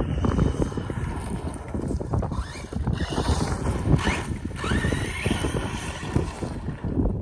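Heavy wind buffeting the microphone, the loudest sound throughout, over the high whine of a 1/8-scale brushless electric RC truck motor that rises in pitch a few times as the truck accelerates, mostly around the middle.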